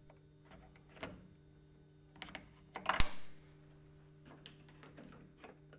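Scattered light clicks and knocks from the sash fittings of a top-swing window as its stoppers are released with pincers and the sash is lifted off the frame. The sharpest click comes about three seconds in.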